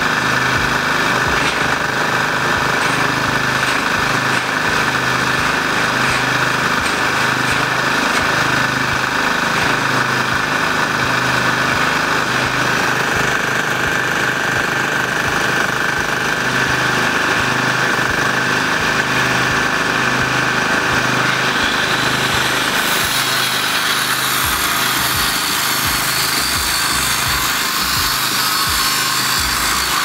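Portable petrol generator engine running steadily under load. About two-thirds of the way in, an electric angle grinder cutting steel joins it with a loud, harsh hiss.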